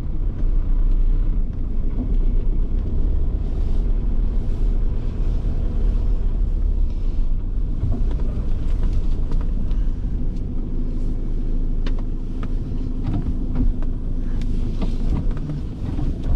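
Land Rover Defender 90 engine running at low speed while the vehicle manoeuvres and turns slowly, a deep steady engine sound. A steady hum joins about ten seconds in.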